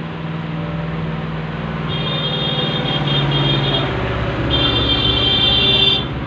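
Street traffic: a vehicle passes with a swelling rumble and sounds a high-pitched horn twice, first in short broken blasts about two seconds in, then in one longer blast that cuts off near the end. A steady low hum runs underneath.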